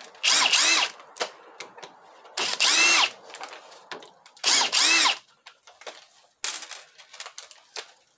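Ryobi cordless drill-driver spinning out loosened Torx Plus 25 bolts from a ZF6HP28 transmission valve body, in three short runs, each rising and falling in pitch. Light clicks of the bolts and tool sound between the runs.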